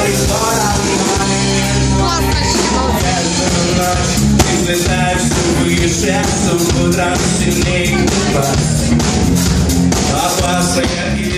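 Live rock-pop band playing loudly: a male singer over electric guitar, keyboard and drums.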